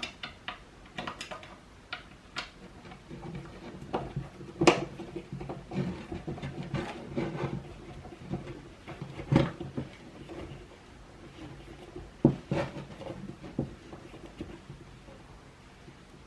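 Irregular clicks and knocks of a skateboard truck being fastened to the deck: the last nut is threaded onto its mounting bolt and the hardware and board are handled, with a few sharper knocks.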